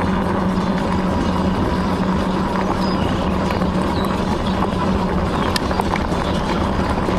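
Aniioke A8 Pro Max dual-motor e-bike riding along: a steady hum under wind and tyre noise, with a few light clicks.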